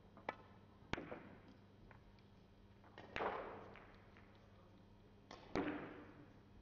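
Russian billiards shot with heavy ivory-white pyramid balls: a light click of the cue tip on the cue ball just after the start, then a sharp click of ball striking ball about a second in. About three seconds in comes a louder knock with a long ringing decay as a ball is potted, and a double knock follows near the end.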